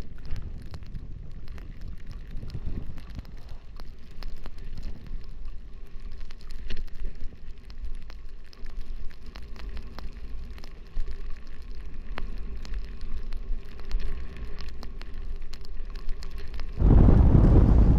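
Skis sliding and scraping over packed snow: a low rumble with a steady crackle of small clicks. Near the end, loud wind buffets the microphone as the skier picks up speed.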